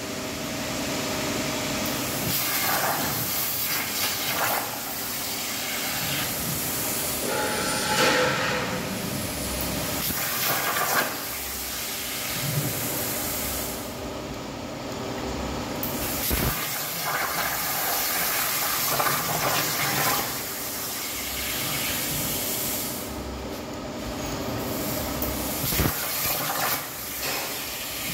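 Plasma torch on a CNC plasma cutting machine cutting 1 mm plate: the arc and its compressed air make a steady hiss, with the whine of the moving gantry shifting in pitch as the torch changes direction.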